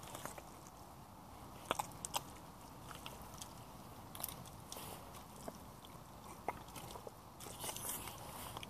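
Yellow Hunter rubber boots treading in thick mud: irregular wet squelches and clicks as the boots press in and pull out. There are a few sharper ones about two seconds in and a denser run near the end.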